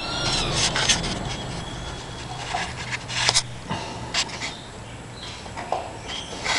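Scratching, rubbing and scraping noises broken by sharp clicks and taps at uneven intervals, over a low steady hum, with a brief high-pitched tone at the very start.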